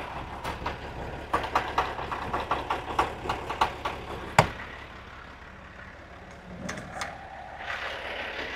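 Truck engine idling steadily under a run of light metallic clicks and one sharp clank about four and a half seconds in, the sounds of fuelling the truck by hand.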